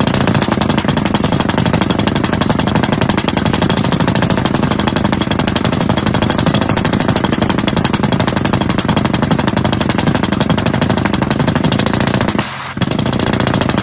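Drill rig fitted with a hydraulic rotary head doing down-the-hole (DTH) drilling: loud, rapid, continuous hammering of the percussion drill. It breaks off briefly near the end, then resumes.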